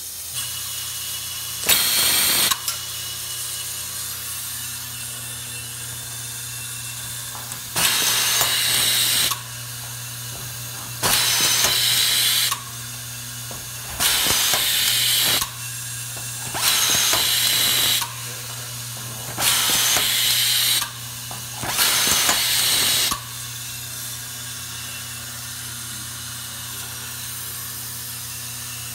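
Vibratory bowl feeder of an automatic-feed screwdriver system humming steadily, while the hand-held screwdriver runs in seven short hissing bursts, each about a second long, as it drives screws into brass valves. After one burst early on, the other six come in a regular run about every two and a half to three seconds.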